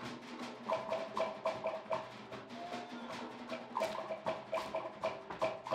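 Cook Islands drum ensemble playing a fast drum-dance rhythm: rapid, sharp wooden slit-drum strikes over deeper drums. The beating thins out briefly in the middle, then returns at full density.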